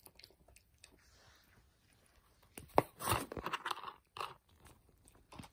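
Pomeranian puppy chewing on a rawhide chew: irregular crunching and gnawing clicks, with the loudest cluster about halfway through.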